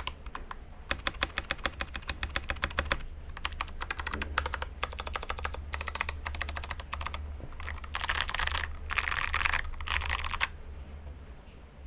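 Typing in fast bursts on a Feker JJK84 mechanical keyboard with clicky Kailh Box White switches and XDA keycaps, a rapid run of sharp clicks with short pauses. The typing stops about ten and a half seconds in.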